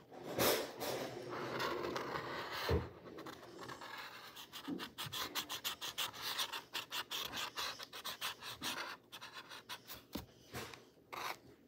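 Rubbing and scratching on a textured canvas board: a run of quick strokes, several a second, growing faster and denser from about three seconds in.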